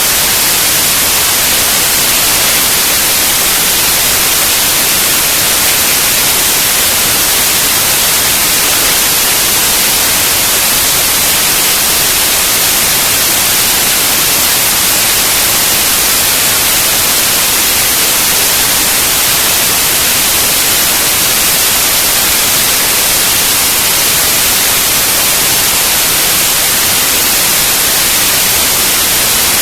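Loud, steady static-like hiss, strongest in the highs, that does not change.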